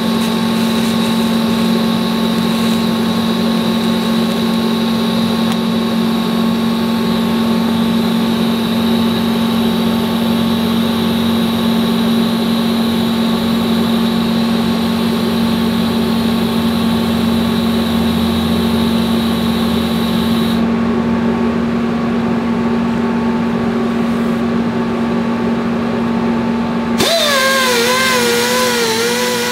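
Steady machine hum with several held tones while a TIG weld is laid on a steel axle tube. About 27 s in the hum cuts off and a die grinder with a wire brush starts, its whine wavering in pitch as it scrubs the fresh weld.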